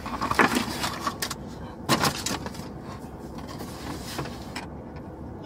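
Aluminium foil lids and takeout containers being handled and opened: scattered crinkles and knocks, the loudest about two seconds in.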